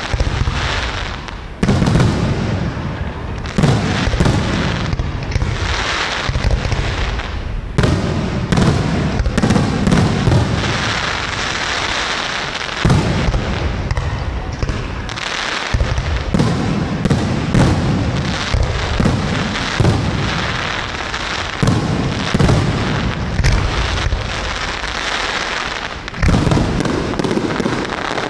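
Aerial fireworks display: shells bursting in rapid succession, with deep booms and crackling, almost without a break.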